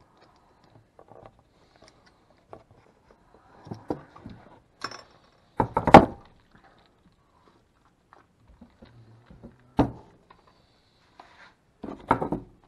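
Objects handled and set down on a wooden workbench: scattered light knocks and clatter, with the loudest thunk about halfway through and sharp single knocks later on and near the end.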